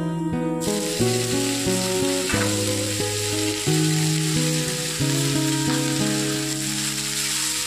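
Oil sizzling in a steel kadai as onion fries and washed amaranth (chaulai) greens are tipped in from a steel colander. Background music with held, plucked notes plays throughout.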